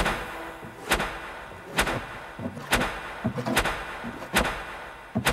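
A sharp knock repeated at an even pace, a little under once a second, about seven times, each with a short ringing tail, like a slow percussion beat.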